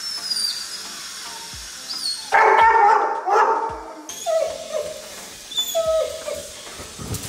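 Dog whining: a louder, longer whine about two seconds in, then a run of short whines that each fall in pitch.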